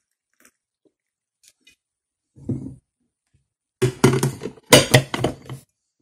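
Glass coffee carafe being set back into the coffee maker: a thump about two and a half seconds in, then nearly two seconds of clattering knocks of glass against the machine's plastic.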